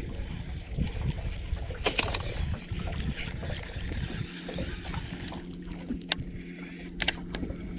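Baitcasting reel being cranked to retrieve a topwater popper, under a steady low rumble of wind on the microphone, with a few sharp clicks.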